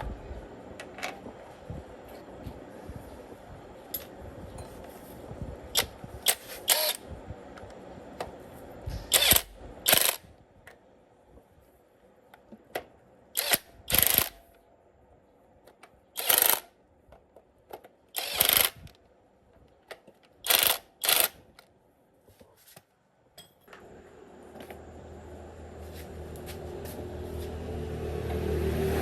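Irregular sharp clinks and knocks of hand tools on metal, about a dozen, spaced a second or more apart. In the last few seconds a motor engine comes in and grows steadily louder.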